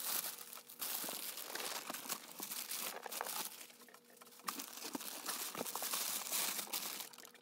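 Crumpled packing paper rustling and crinkling as hands dig through a corrugated cardboard shipping box, with scrapes and small knocks against the boxes inside. It eases off briefly about four seconds in.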